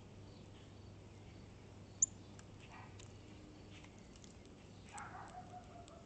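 Faint clicks and taps as a male northern cardinal pecks and cracks seed at a plastic tray feeder, with one sharp click about two seconds in. A short rustling sound with a falling tone comes about five seconds in.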